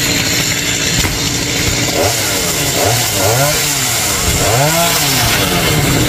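Two-stroke chainsaw engine revving up and falling back over and over, its pitch rising and dropping about once a second.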